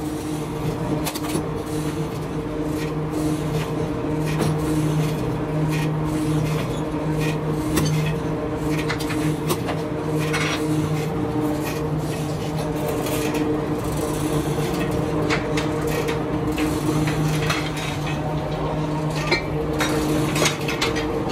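Steady machine hum with irregular metallic clicks, snips and scrapes from large scissors cutting rubber hose and hose pieces being handled on a metal workbench.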